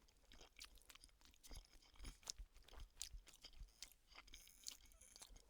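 Faint chewing: soft, irregular mouth clicks of someone eating a mouthful of microwaved chicken tikka and rice ready meal.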